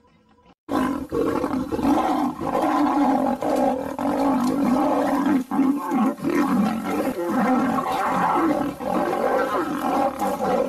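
Lion roars and growls laid over the picture as a sound effect, starting abruptly under a second in after near silence and continuing without a break.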